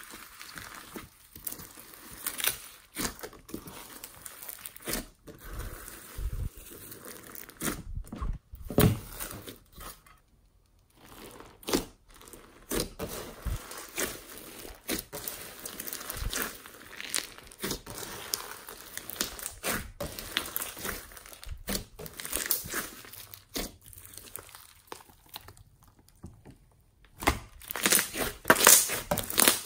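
Homemade slime mixed with foam beads being squeezed, folded and pressed by hand, giving irregular crackling and popping clicks. There is a short pause about ten seconds in, and a denser run of louder pops near the end.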